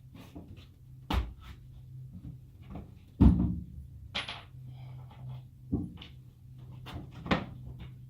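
Scattered knocks and thumps, the heaviest about three seconds in, over a faint steady low hum.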